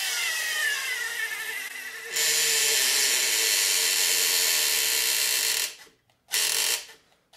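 Workzone cordless screwdriver driving a square-drive screw into maple, its motor whine falling in pitch as it labours. About two seconds in it gets louder and runs steadily for about three and a half seconds, stops, then gives one short burst.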